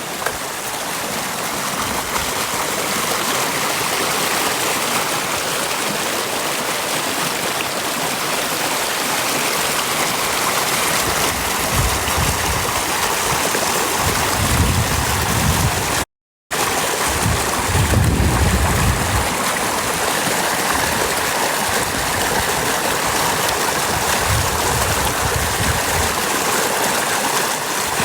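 Steady rushing of flowing water, like a creek, with low rumbling thumps coming and going through the middle. The sound cuts out completely for a moment about halfway through.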